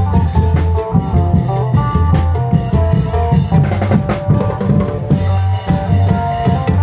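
Live Isan klong yao (long-drum) band music: drums beating a busy, steady dance rhythm under a melody line.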